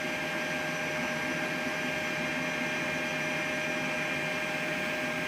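Steady hum and hiss of a Boeing 737-800 flight deck on the ground, with a few constant whining tones held at one pitch.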